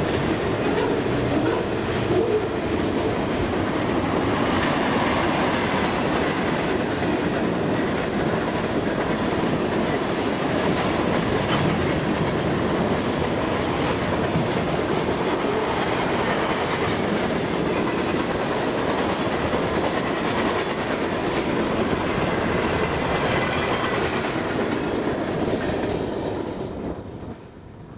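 Cars of a Canadian National freight train, double-stack container cars and then tank cars, rolling past with a steady noise of steel wheels on the rails. Near the end the sound falls away quickly as the last car passes.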